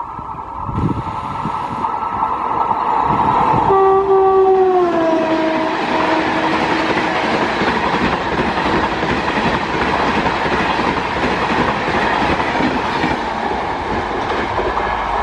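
WAP5 electric locomotive of a Shatabdi Express sounding its multi-tone horn about four seconds in, the chord dropping in pitch as it passes at high speed. Then a steady loud rush of the coaches going by on the rails.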